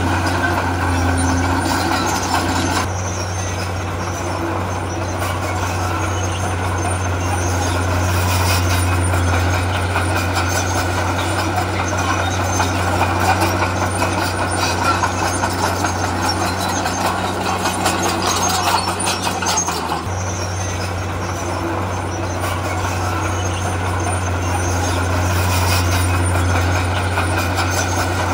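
Heavy diesel engines of earthmoving machinery running with a steady low hum and a wash of mechanical noise. The sound shifts about 3 seconds in and again about 20 seconds in.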